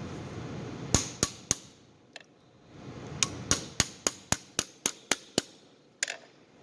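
Small hammer tapping a pin punch to drive a peened pin out of a Swiss Army knife: three sharp taps, then a quicker run of about nine taps at roughly four a second, then one more near the end.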